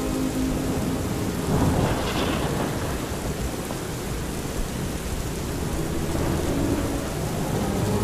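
Thunderstorm sound effect: steady rain hiss, with a roll of thunder swelling about a second and a half in.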